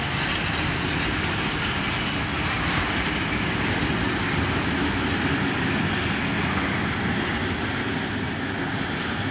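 A freight train of high-sided open wagons rolling past close by: a steady, continuous noise of wheels running on the rails and rattling wagon bodies.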